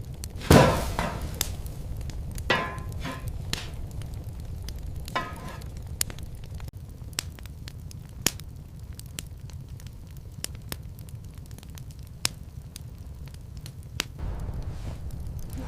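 Sharp crackles and pops scattered throughout over a low, steady rumble, with three louder crunching bursts in the first five seconds, the first the loudest.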